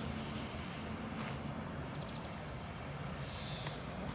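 Outdoor ambience: a steady low rumble, with one short, high, falling whistle about three seconds in.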